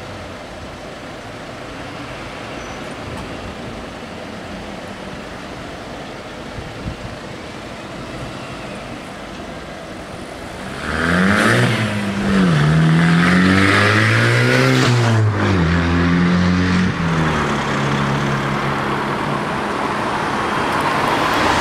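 Road traffic at a level crossing just after the barriers lift. About eleven seconds in, a nearby car engine starts to accelerate, its pitch rising and dropping back a few times as it pulls away over the crossing. Steady traffic noise follows as other vehicles cross.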